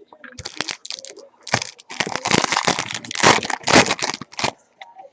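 A trading-card pack wrapper crinkling and tearing as it is opened: scattered crackles, then a dense run of crinkling from about two seconds in that stops near the end.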